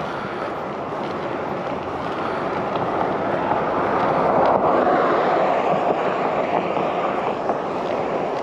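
Steady rushing noise of a mountain bike ride on a paved path: wind buffeting the action camera's microphone mixed with tyre noise, growing a little louder about halfway through.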